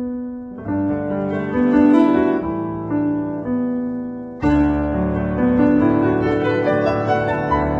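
Background music on a piano-like keyboard: sustained notes and chords, with a fuller passage coming in about four and a half seconds in.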